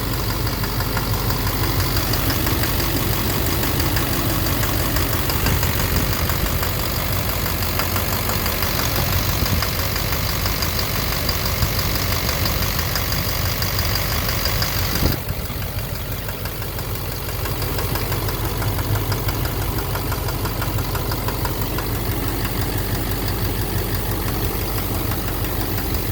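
Duramax LMM 6.6-litre V8 turbodiesel idling cold with a steady knock. The owner suspects an injector or a cracked flexplate. Its level dips briefly about halfway through.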